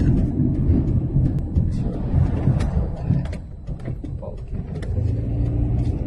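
Car driving along a road, a steady low rumble heard from inside the car, with a few faint clicks.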